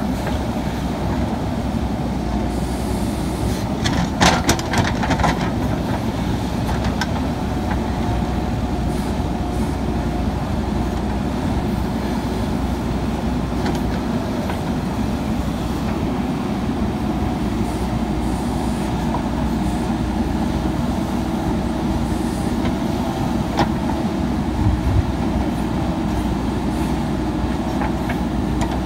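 JCB 3DX Super backhoe loader's diesel engine running steadily under load as the backhoe bucket digs into dry, stony soil. A few sharp clatters of the bucket and stones come about four seconds in and again near the end.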